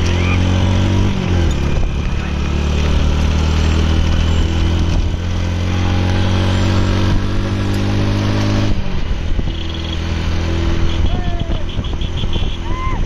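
The engine of a motor vehicle close to the microphone runs steadily, its note shifting about a second in and dropping away about nine seconds in. Near the end, shrill rising-and-falling calls from people come in.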